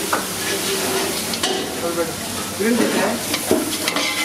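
Food sizzling in a large pan while a metal ladle stirs and scrapes through it, with a few sharp clinks of metal on metal.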